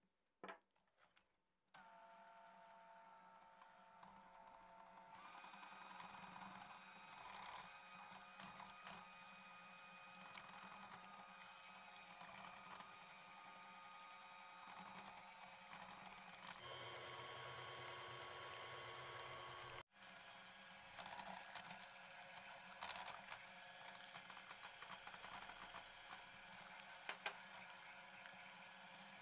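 Electric hand mixer with twin wire beaters whipping heavy cream in a glass bowl. The motor starts about two seconds in, steps up to a higher pitch a few seconds later, and runs on steadily, with a few sharp clicks near the end.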